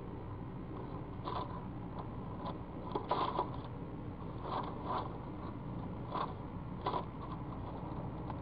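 Screech owl scooting on the nest-box floor with her belly and feet, making short irregular scraping and scratching noises, about half a dozen in all; this is instinctive nest-scraping behaviour. A steady low hum runs underneath.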